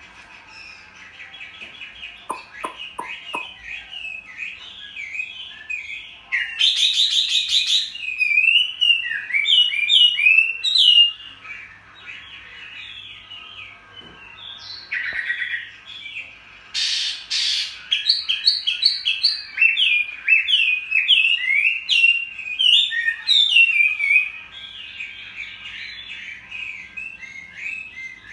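Chinese hwamei singing a long, varied song of quick repeated whistled and chirping phrases, louder in some stretches, with short breaks. A few sharp clicks come about two to three seconds in.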